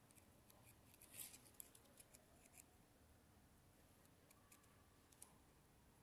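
Faint small metallic clicks and scratches of a lock pick and tension tool working inside a car door lock cylinder. They come in two short runs, about a second in and again around four to five seconds in.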